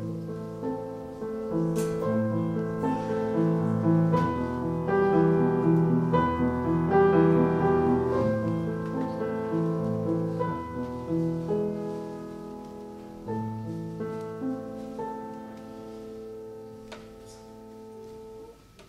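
Solo piano music: chords and a melody that grow louder toward the middle, then ease off and end on a long held chord.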